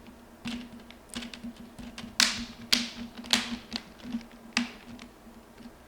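Plastic screen bezel of a Samsung XE303C12 Chromebook being pressed back on, its clips snapping into place in a series of sharp, irregular clicks, the loudest between about two and five seconds in.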